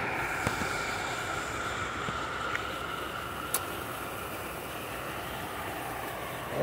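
Water slide run-out pouring a steady stream of water into the pool, a constant rushing splash.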